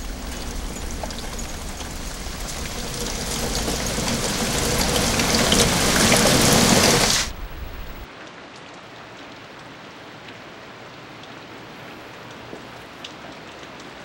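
Heavy rain falling in a dense hiss that swells louder, then cuts off abruptly about seven seconds in to a much fainter, steady rain sound.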